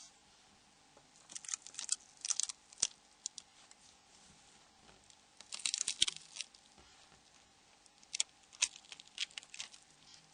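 Protective film being peeled off a new phone keypad dome sheet with metal tweezers: soft crackling and tearing in three short spells, about a second and a half in, about six seconds in, and again near the end.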